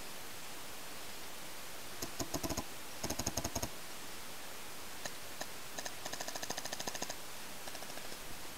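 Paintball markers firing in rapid strings of sharp pops, about ten shots a second. There are two short bursts about two and three seconds in, then a longer string from about six to seven seconds, over a steady hiss.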